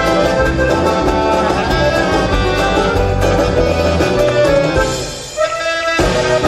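A band playing Argentine folk music in an instrumental passage. About five seconds in it thins out and quietens briefly, then the full band comes back in.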